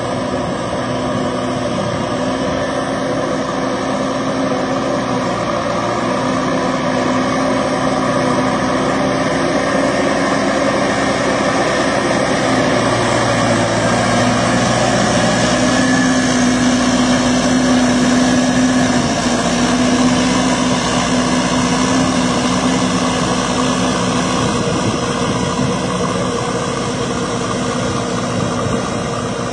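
Diesel farm tractor engine running steadily under load while puddling a flooded rice paddy on steel cage wheels, its pitch shifting slightly now and then.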